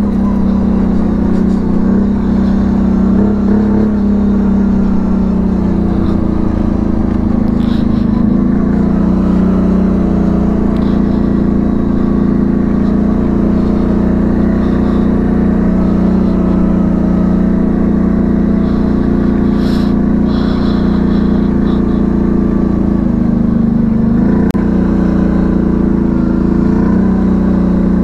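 ATV's V-twin engine running steadily under throttle, its pitch rising and dipping a little as the speed changes.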